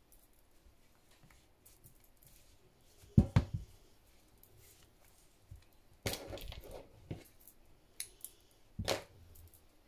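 Hand-sewing handling noises: a few short knocks and rustles of thread, fabric and tools being handled, the loudest about three seconds in, another rustling stretch around the middle and a knock near the end.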